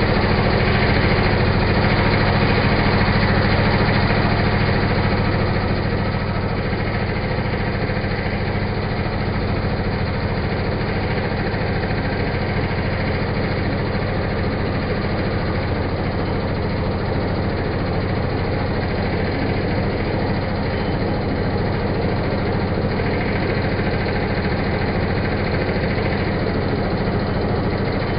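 Pillar drill press running steadily, a continuous machine hum while a counterbore is cut into a drilled hole; it drops a little in loudness about five seconds in and then holds steady.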